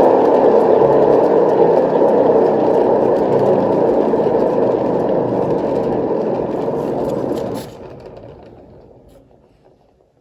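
Spinner turning a wet paint-pour canvas, a steady mechanical whir. About seven and a half seconds in it is cut off and winds down to a stop over the next two seconds.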